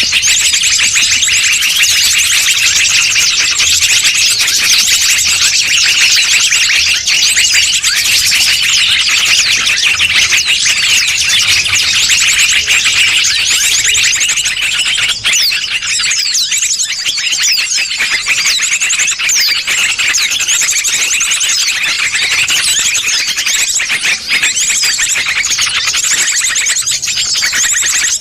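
A bird-luring call recording: a loud, dense chorus of shrill small-bird chirps and fast trills, going on without a break.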